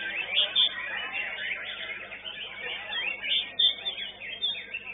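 White-rumped shamas (murai batu) singing in competition, several birds' quick whistled phrases overlapping, sweeping up and down in pitch with some loud high notes.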